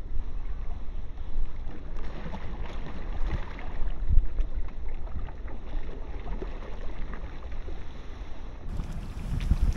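Wind rumbling on the microphone over water lapping at a kayak, with a few light knocks.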